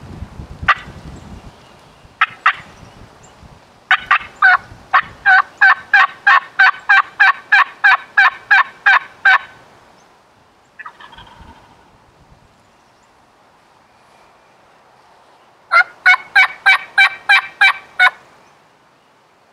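Wild turkey yelping: a long run of about twenty evenly spaced yelps at roughly four a second, a short rough call in the pause, then a second, quicker run of about ten yelps near the end.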